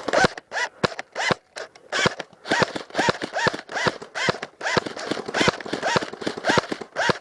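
Airsoft rifle firing a rapid string of single shots, about three or four a second, each a sharp mechanical snap close to the microphone.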